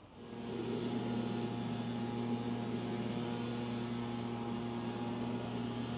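A steady, even hum made of several unchanging pitched tones, fading in at the start and holding level throughout.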